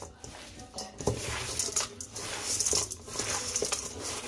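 Hands squeezing and tossing oiled chopped herbs and leaves in a stainless steel bowl: wet squishing and rustling in repeated strokes, about one a second.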